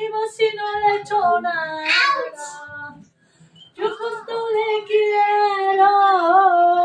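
A woman singing on her own without accompaniment, holding long notes that slide in pitch, with a short break about three seconds in.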